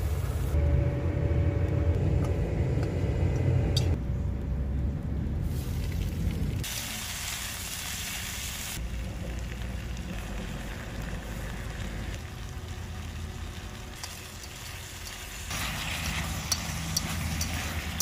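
Vegetables sizzling and being stirred in a pan over a portable gas burner, with a low rumble underneath. The sound cuts abruptly between short takes several times.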